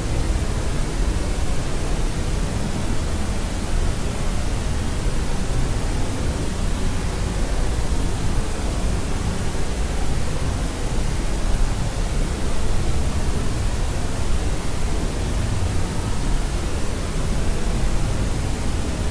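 Steady white noise for sleep: an even, unbroken hiss, heavier in the low end, like pink noise.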